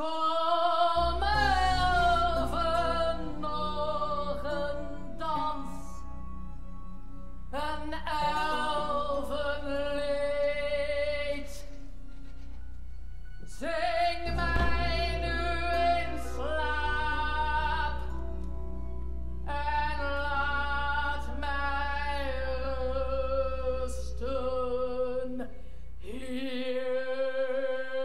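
A woman singing operatically in a high voice, in long vibrato phrases broken by short pauses, over a steady low sustained tone that stops near the end.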